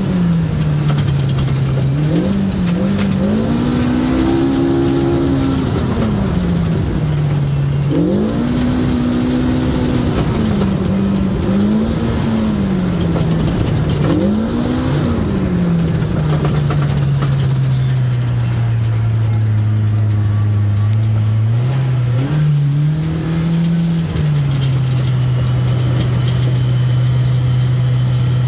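Polaris RZR side-by-side engine running under way on a dirt trail, heard from inside the cab: its pitch rises and falls again and again as the throttle opens and eases off, then settles into a steadier, lower drone for the second half with one short rise.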